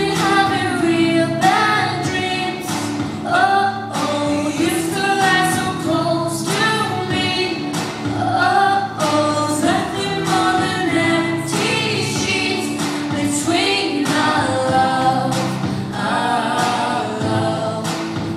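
A woman singing a pop ballad solo into a microphone, her voice gliding through long held notes over a steady instrumental accompaniment.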